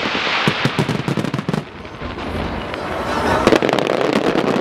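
Fireworks in a musical starmine barrage: rapid cracks and bangs of bursting shells for the first second and a half, then a rising rushing hiss as ground fountains flare near the end. Music plays underneath.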